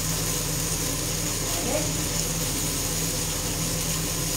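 Kitchen range hood extractor fan running with a steady hum and hiss, over a skillet of octopus, zucchini and cherry tomatoes frying on the gas burner.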